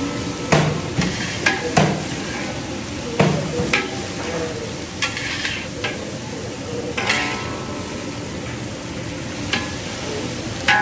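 Long metal spatula scraping and clacking against a large wok as shredded cabbage and carrots are stir-fried, over a steady sizzle. The strokes come at uneven intervals, roughly one a second.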